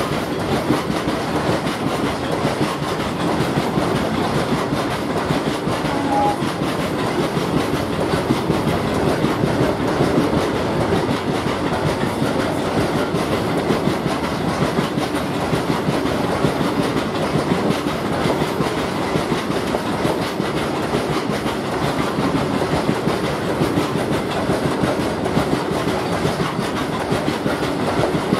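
Fully loaded BOXN open freight wagons rolling past at speed: a steady rumble with the wheels clattering continuously over the rails.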